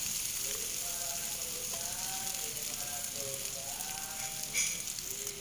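Chicken pieces sizzling on a perforated stovetop grill pan over a gas flame, a steady hiss. Faint wavering tones run in the background, with one brief click near the end.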